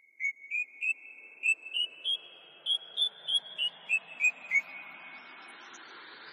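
Electronic logo-intro sound effect: a run of short, whistle-like synth chirps, about three a second, that step up in pitch and then back down, over a hiss that swells in.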